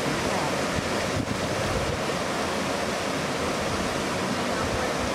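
Steady rushing of water, with wind buffeting the microphone.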